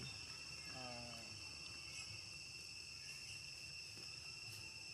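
Faint, steady chorus of insects, cicadas or crickets, as a constant high-pitched ringing on two main tones. About a second in there is a brief falling call or murmur.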